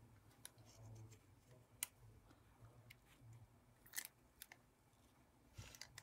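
Near silence with faint handling of small paper cut-outs and a plastic glue bottle: light rustling and a few short, sharp clicks.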